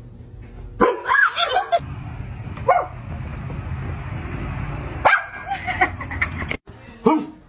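A dog barking and yipping in several short bouts, over a steady rushing noise that stops abruptly about six and a half seconds in.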